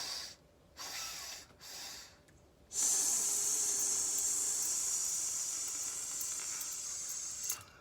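A woman hissing through her teeth like a cobra on the out-breath: two short hisses, then one long hiss that lasts about five seconds.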